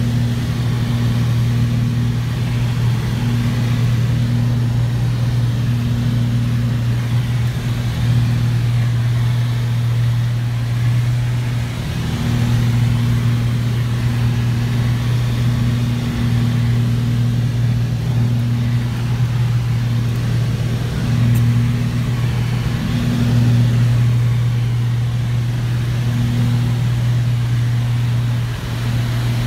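Twin-engine propeller plane's engines droning, heard from inside the passenger cabin in flight: a loud, steady low drone with a slow, uneven pulsing as the two propellers beat against each other.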